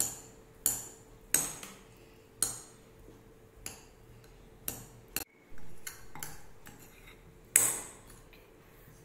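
Metal spoon clinking against a glass bowl while stirring boiled sweet corn kernels: about eight sharp clinks at uneven intervals, the loudest near the end.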